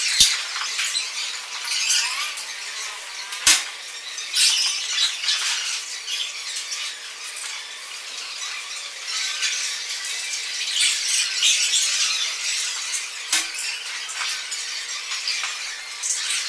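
Shards of broken drinking glass clinking and scraping against each other as they are handled and fitted together, with two sharper clicks, one at the very start and one about three and a half seconds in.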